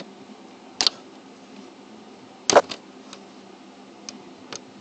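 Plastic parts of a PS3 console being unclipped and pulled up by hand during disassembly: a few sharp clicks and knocks, the loudest about two and a half seconds in, with lighter ticks near the end.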